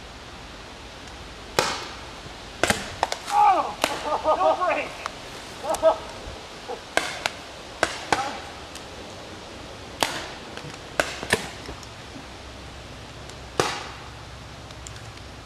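Paintball markers firing scattered single shots across a field: about a dozen sharp pops spread out, some in quick pairs.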